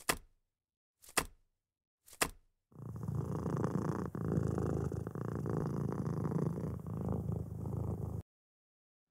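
Three short clicks about a second apart, then a domestic cat purring steadily for about five seconds, stopping abruptly near the end.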